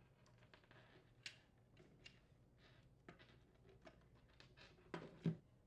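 Faint clicks and rustling of hands handling refrigerator wires and small plastic parts, with two louder knocks in quick succession near the end.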